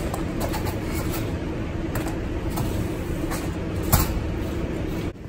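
Steady machinery running with a constant hum, light clicks and a sharp knock about four seconds in; it cuts off abruptly just before the end.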